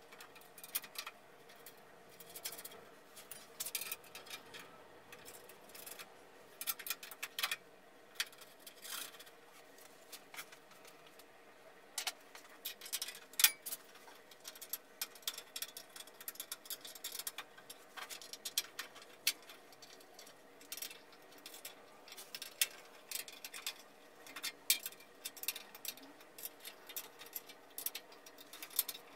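Irregular short metallic clicks and taps as bolts are fitted to attach the steel legs of a bandsaw stand.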